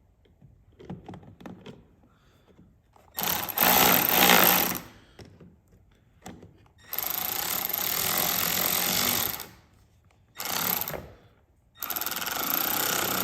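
Cordless power driver running a screw in, in four bursts: one of about a second and a half, a longer one of about two and a half seconds, a short blip, then another run near the end. Faint clicks of handling come first.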